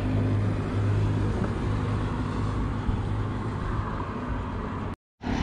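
Road traffic: a motor vehicle's engine drones steadily at a low pitch over tyre and road noise. The sound cuts out abruptly for a moment near the end.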